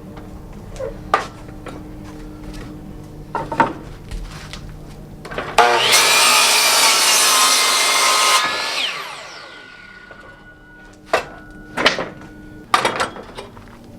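A power saw cutting through a wooden bed slat for about three seconds, the blade whining down as it spins to a stop. Before and after the cut, knocks from the wood being handled.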